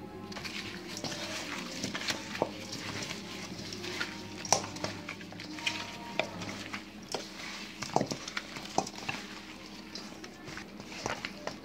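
Raw ribs being mixed by hand in a plastic glove with oil and spices in a stainless steel bowl: wet rubbing and squelching of meat, with scattered sharp clicks and knocks of ribs against the metal bowl.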